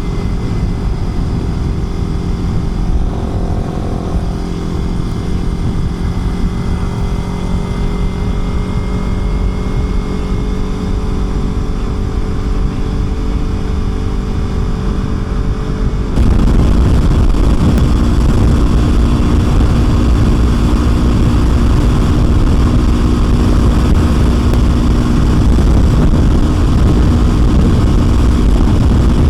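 Kawasaki Ninja 300's parallel-twin engine running at a steady cruise while riding, with wind rushing past. About halfway through, the sound suddenly gets louder, with more wind rush and a lower, different engine note.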